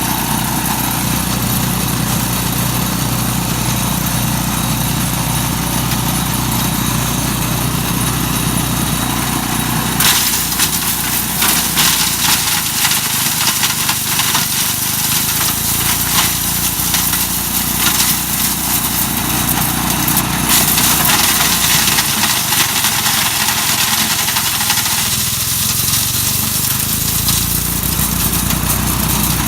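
Mighty Mac wood chipper running steadily. About ten seconds in, a dense clatter of hard knocks and cracks begins as walnuts are ground, and it lasts about fifteen seconds before the steady running returns.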